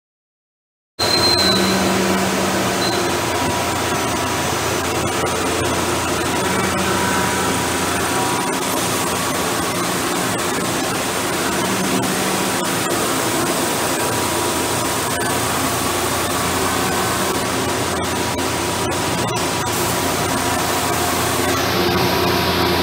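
Steady machine-shop noise: machinery and ventilation running with a constant hum and a faint steady tone, starting abruptly about a second in, with a few light clicks.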